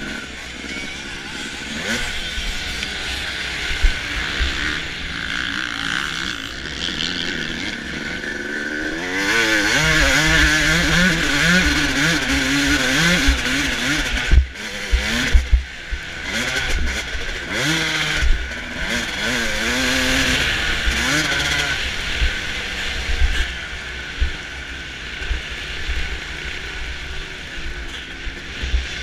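Suzuki RM250 two-stroke single-cylinder motocross engine revving up and down under hard riding, its pitch rising and falling as the throttle opens and closes. It is quieter for the first several seconds and loudest through the middle, where a few sharp knocks stand out. A steady rush of wind on the microphone runs underneath.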